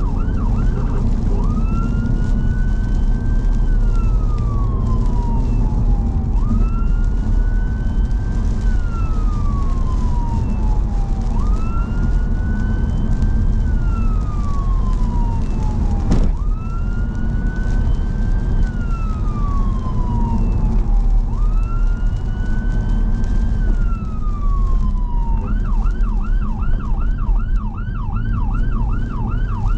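Emergency response car's siren heard from inside the cabin. It starts on a fast yelp, changes to a slow wail that sweeps up and down about every five seconds, five times, and goes back to the fast yelp near the end. Steady engine and wet-road tyre noise runs underneath, with a single sharp click about halfway through.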